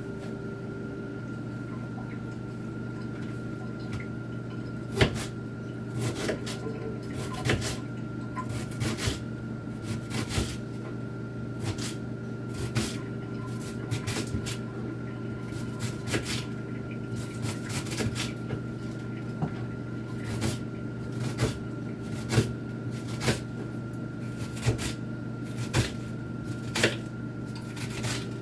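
Knife chopping cabbage on a cutting board: irregular sharp knocks, about one or two a second, starting about four seconds in. A steady hum from the kitchen exhaust fan runs underneath.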